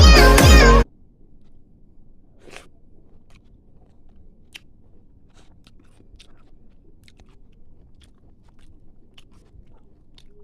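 Background music cuts off under a second in. After that, someone chews food with scattered faint, crisp crunches.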